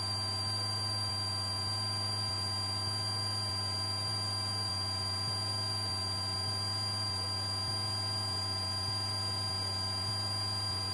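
Steady, unchanging drone of a Cessna light aircraft in flight, with a thin high whine over it.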